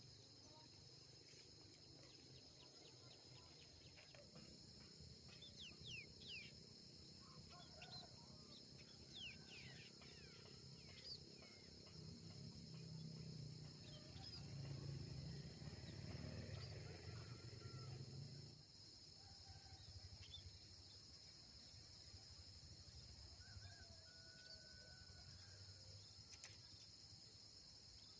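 Steady high-pitched drone of insects, typical of a cricket chorus, with scattered short bird chirps in the first half. A low rumble rises around the middle and stops suddenly a few seconds later.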